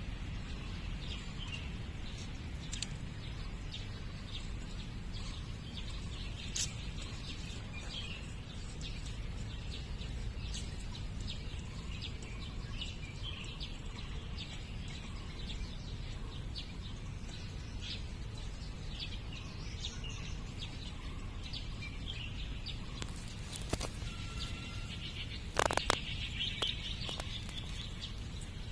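Small birds chirping intermittently over a steady low background rumble, with a few sharp clicks near the end.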